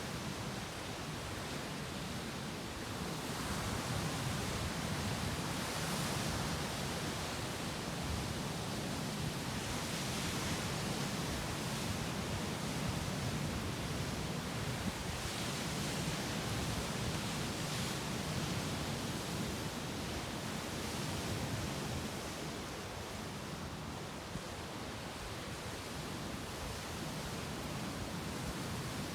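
Sea waves breaking on the shore: a continuous hiss of surf that swells and eases every few seconds.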